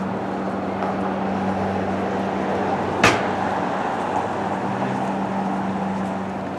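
Steady engine hum over city street traffic, with one sharp bang about three seconds in.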